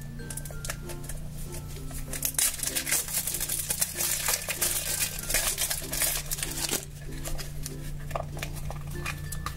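Clear plastic shrink-wrap crinkling and tearing as it is peeled off a plastic toy package, a dense run of quick crackles from about two seconds in that eases off near seven seconds, then plastic handling, over quiet background music.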